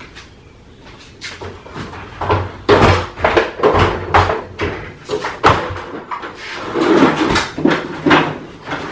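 A metal ladder being dragged and shifted out from among stored bikes, clanking and knocking against the wall and the things around it in an irregular run of clatters and bangs.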